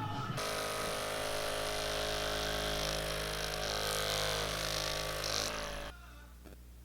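A small electric motor runs steadily with an even, unchanging hum, starting abruptly just after the start and cutting off after about five and a half seconds.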